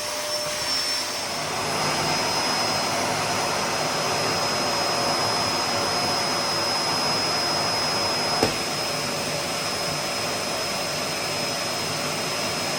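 Hoover Power Pro 2300-watt drum vacuum cleaner running steadily, with a thin high whine over the rush of air. It gets a little louder about two seconds in, and there is a single sharp click about eight and a half seconds in.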